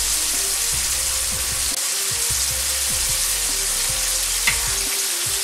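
Corn and edamame kakiage fritters in egg batter deep-frying in hot oil in a wok: a steady sizzle of bubbling oil, with a small pop about four and a half seconds in.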